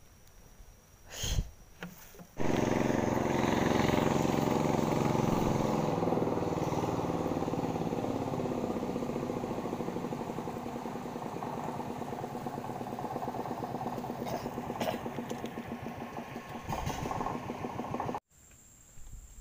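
Small boat engine running steadily, coming in abruptly a couple of seconds in and cutting off abruptly near the end, its pitch easing down a little early on. A single sharp knock comes just before it.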